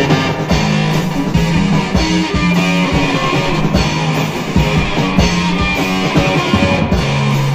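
Rock music with guitars and bass: a steady instrumental passage with held low notes and a regular beat.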